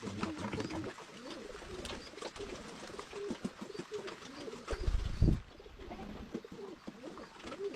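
Pigeons or doves cooing over and over, with a short low rumble about five seconds in.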